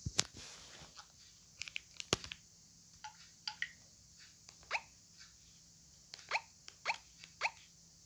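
Handling clicks from a Texet TM-414 mobile phone, then a series of short, falling blip tones, one at each button press as the phone's menu is navigated.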